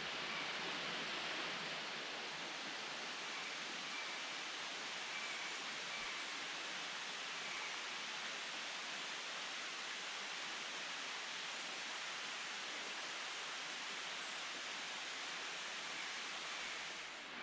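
Steady, even hiss of jungle ambience, with faint short high chirps now and then.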